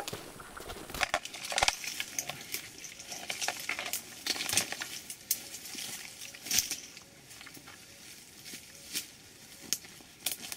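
Irregular rustling of leaves and undergrowth with light clicks and clatter of hard gear as several people move through brush. The clatter is busiest in the first half and thins to a few scattered clicks later.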